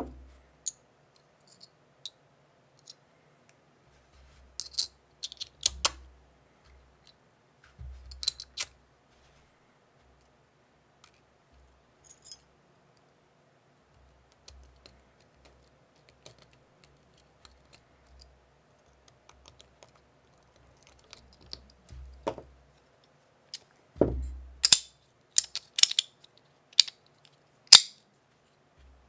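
Stainless steel Battle Master gun-style fidget slider being handled and cocked: sharp metal clicks and clacks in scattered groups, with a busier run of them near the end.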